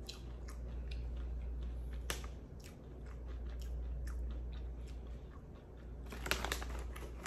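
Someone chewing cinnamon-coated popcorn: scattered small crunches, with a denser flurry of crackly crunches near the end, over a low steady hum.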